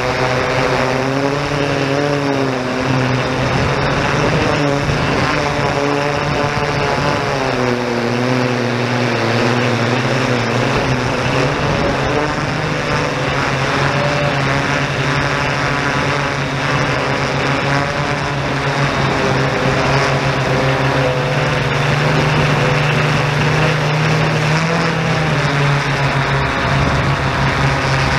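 Yuneec Typhoon G drone's propellers and motors running, heard from close on board: a steady, loud hum whose several pitches waver up and down as the motors adjust their speed.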